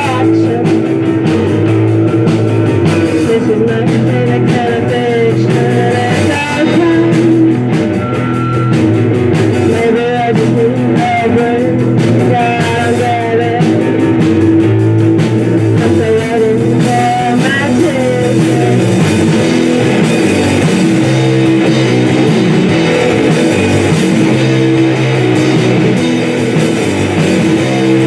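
A live rock band playing a song: guitar over a steady bass line, with singing.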